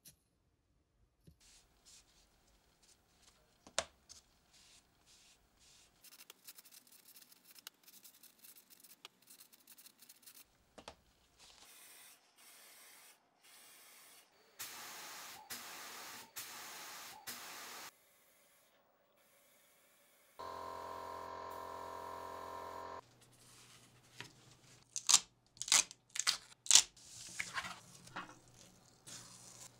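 Light handling of small plastic parts and masking tape, then an aerosol spray paint can spraying in four short bursts. After that comes a steady humming tone for a couple of seconds, and near the end several sharp, loud rips of masking tape being peeled off the painted plastic parts.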